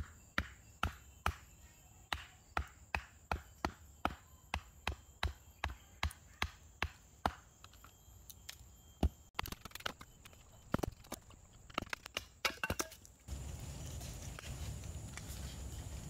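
A wooden baton repeatedly strikes the spine of a Scandi-ground bushcraft knife to drive it down through an upright piece of wood. The knocks come at about two and a half a second for the first eight seconds, then slow to a few louder, uneven cracks as the split opens. The last few seconds hold only a steady low background noise.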